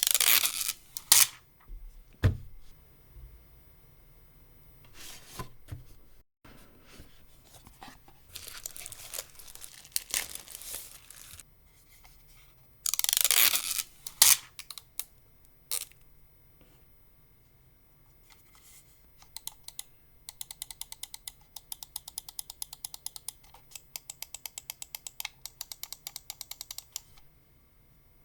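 Unboxing of an Akko Pulse01: cardboard and plastic packaging rustling and tearing, with a long sliding scrape about halfway through. From about two-thirds of the way in comes a fast run of sharp, evenly spaced clicks lasting several seconds, the device's keys or buttons being pressed.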